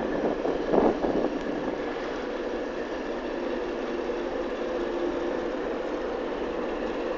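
Diesel engine running steadily: a low rumble with a hum of a few steady tones, and a brief louder rush about a second in.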